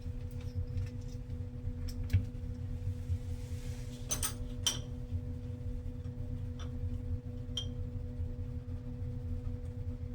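Small metal hardware clinking and tapping as door closer parts and screws are handled, a handful of sharp clicks, some with a brief ringing tone, over a steady low hum.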